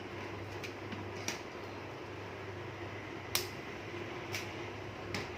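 Plastic cable ties being fastened around bundled wires inside a computer case: about five short, sharp clicks and ticks at irregular intervals, the sharpest a little past the middle, over a steady low hum.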